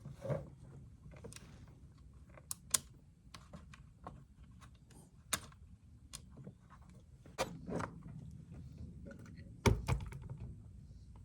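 Irregular clicks and light knocks of small carburetor parts and hand tools being handled during reassembly, with a heavier thud near the end.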